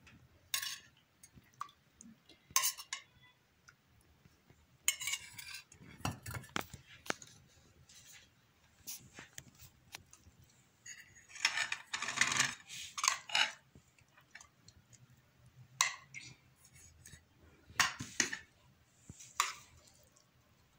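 Metal spoon clinking and scraping against a small metal pot as stew is served out, in scattered short knocks and scrapes that are busiest about twelve seconds in.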